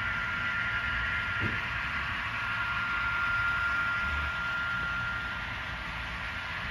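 N scale model train running on its track: a steady whir with a thin, high, constant whine.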